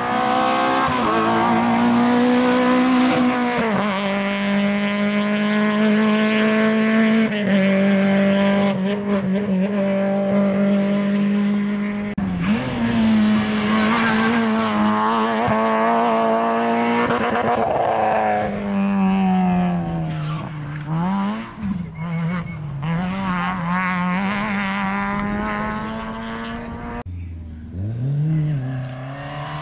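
Rally car engine running hard at high revs. The pitch steps down at gear changes a few seconds in and again near the middle, wavers and dips through a run of lifts and downshifts, and drops sharply near the end before picking up again.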